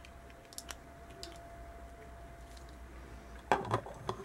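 Faint plastic ticks and clicks as an Oriflame SkinPro face cleansing brush and its clear cap are handled. About three and a half seconds in comes a louder clatter of several quick knocks as the brush is set down in its plastic stand.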